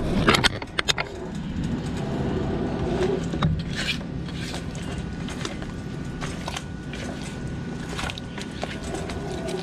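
Silicone spatula stirring and scraping apple-pie filling in a frying pan, with irregular scrapes and knocks, busiest in the first second, over a steady low hum.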